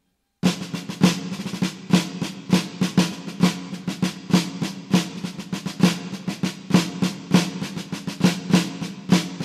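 Percussion-driven background music: a fast, steady drum pattern of sharp hits over a held low note, starting about half a second in.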